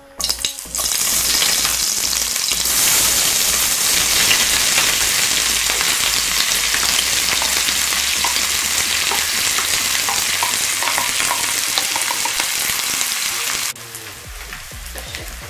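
Chopped onion hits hot lard in a frying pan and sets off a loud, steady sizzle. Near the end the sizzle drops suddenly to a quieter level while a wooden spatula stirs the onion.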